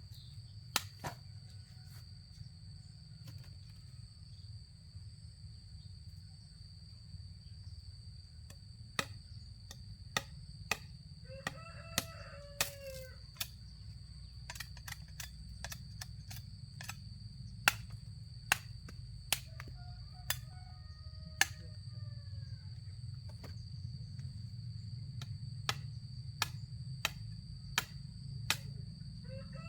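A rooster crowing twice, each crow about a second and a half long, over a series of sharp, irregular knocks and a steady high-pitched tone.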